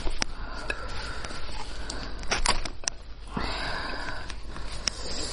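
Close-up eating sounds from a spicy sheep's head: two breathy sniffing or sucking sounds of about a second each, one at the start and one about three seconds in, with sharp clicks of mouth or bone in between.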